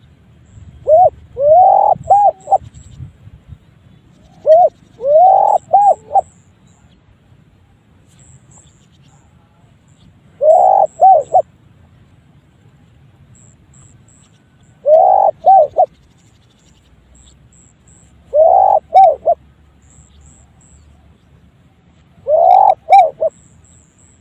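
Spotted dove cooing: six short phrases of three or four quick curved notes each, one every four seconds or so. It is a call its recorder finds unusual, unlike the species' normal coo.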